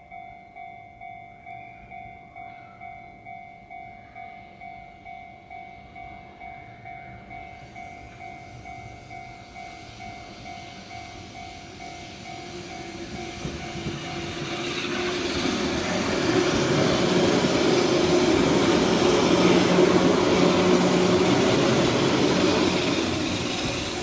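Level-crossing warning bell ringing in a steady ding-ding, about one and a half strokes a second. From about ten seconds in, a Keihan 600-series electric train approaches and passes over the crossing. Its wheels and running gear grow loud, drown out the bell, and ease off near the end.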